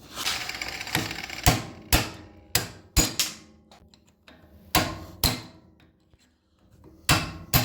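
About nine sharp hammer blows on the steel of an old outer CV joint, at uneven intervals with a pause midway, each with a short metallic ring. The blows are knocking apart the slotted outer race to free the balls.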